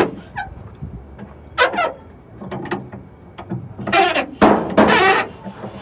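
Rusty metal hood hinges or latch on an old truck squeaking as the hood is worked, a sharp click at the start then several short squeals, the loudest pair near the end; the squeaks come from dry, rusted parts that need oil.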